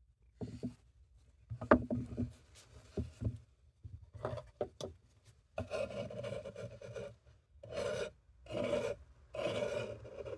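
Metal knife blade scraping and crushing naphthalene mothball granules on a wooden board. A few sharp taps and short scrapes come first, then from about halfway a run of longer scraping strokes, each about a second long.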